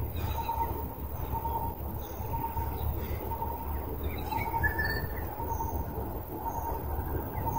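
Birds calling: a short note repeated every half second or so, with gaps, and a few brief high chirps, over a low steady rumble.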